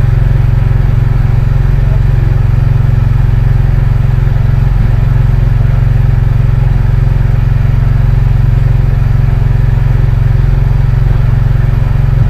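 A fishing boat's engine running steadily at constant speed: a loud, even, low drone with no change in pace.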